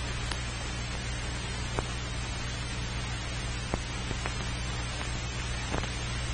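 Steady hiss and low mains hum from an old film soundtrack, with a few faint, irregularly spaced clicks.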